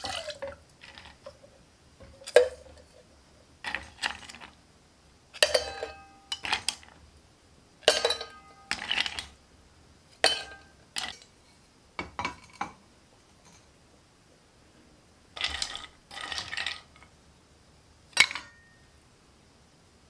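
Ice cubes dropped one at a time into a stainless steel Stanley cocktail shaker and a steel cup, each landing with a clink and a short metallic ring. There are about fifteen drops, with a pause of a couple of seconds about two-thirds of the way through.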